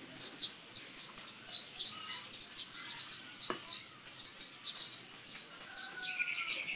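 Hand-held metal grater scraping kernels off an ear of white corn, in short rasping strokes a few times a second.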